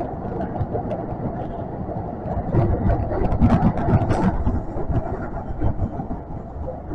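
Kintetsu train running through the underground Karasuma Line tunnel, heard from inside the car as a steady rumble of wheels and motors. A louder stretch of sharp clicks comes about three to four seconds in.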